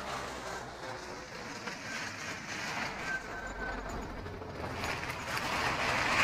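Motor vehicle noise, a steady rumble that swells over the last couple of seconds.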